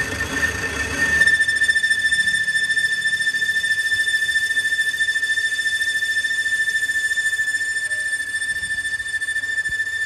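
Lathe boring tool cutting inside a spinning metal hub and squealing with a high, steady, whistle-like tone, the kind of squeal that comes from tool chatter. The lower machine rumble drops away about a second in, and the squeal carries on.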